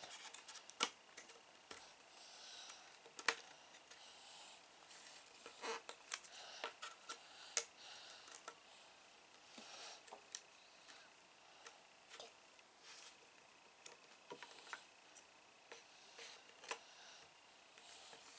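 Jigsaw puzzle pieces being picked up off a table and pressed into a puzzle tray: irregular light taps and clicks, with a sharper tap every couple of seconds.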